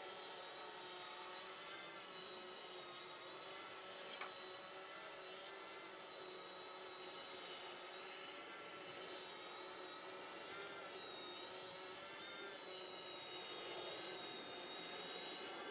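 Multirotor drone hovering: its electric motors and propellers make a steady whine, the pitch drifting gently up and down as the altitude hold makes its corrections.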